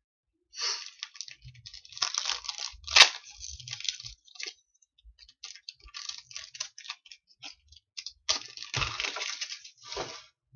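Trading cards being handled and flipped through, with irregular rustling, sliding and crinkling and a sharp snap about three seconds in.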